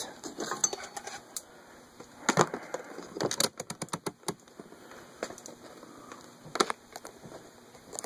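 Scattered knocks, clicks and rattles of things being handled and moved while rummaging, with louder clusters a couple of seconds in, around the middle, and near the end.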